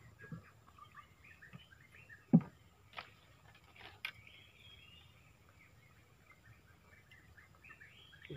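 Small birds chirping in a steady stream of short, high calls. One loud knock comes about two seconds in, and lighter clicks follow about a second and two seconds later.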